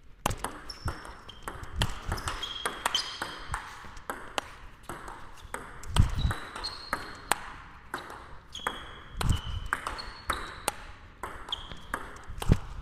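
Table tennis rally: a celluloid/plastic ball is struck back and forth with rackets, one faced with Nittaku Genextion rubber, and bounces on the table. It makes a quick, steady run of sharp clicks, many ringing with a short high ping, with a few duller low thumps among them.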